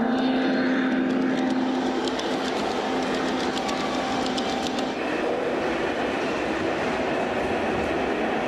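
Large-scale model train passing close by: a steady hum, with a quick run of clicking from the wheels over the track between about two and five seconds in, after which the hum fades into steady hall noise.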